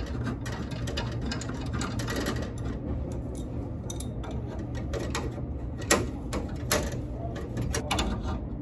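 Metal wrenches clicking and clinking against the brass and copper fittings at a walk-in cooler's refrigerant solenoid valve as they are set on a flare nut, over a steady low hum. Two sharper clanks stand out about six and seven seconds in.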